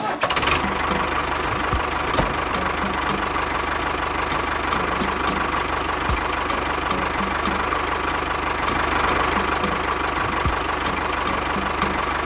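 A small motor on a DIY mini tractor running steadily, with a constant whine and a fast, even ticking. It starts abruptly and holds the same speed throughout.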